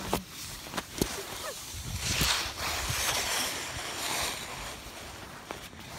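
Glove and clothing handling close to the microphone as a ski glove is pulled on: a few knocks and clicks, then a rustling hiss for about two seconds.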